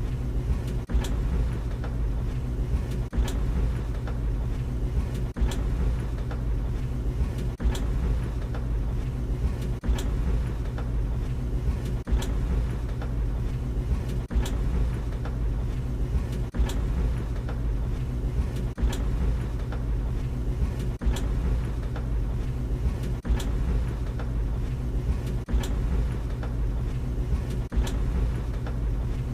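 Tumble dryer running: a steady low hum of the motor and turning drum, with light clicks recurring every second or two as the drum turns.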